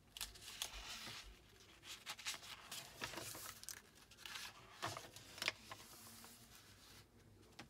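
Paper pages of a worn paperback picture book rustling softly as they are turned by hand, with a couple of sharp light clicks about five seconds in.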